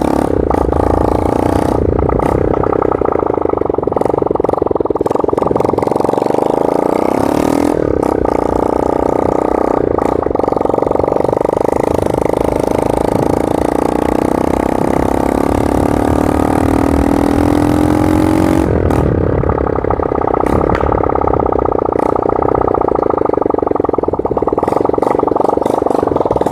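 Honda ML 125 single-cylinder four-stroke motorcycle engine running with its muffler removed, only the bare header pipe left. It is very loud, with its pitch rising and falling as the throttle is worked.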